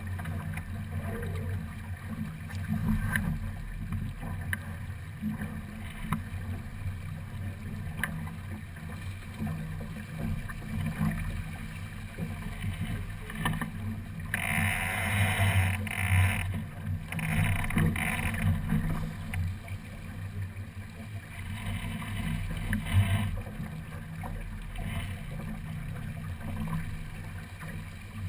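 Water rushing along the hull of a sailing keelboat under way, with a steady low rumble throughout. About halfway through comes a louder hissing splash, and a second one follows a couple of seconds later.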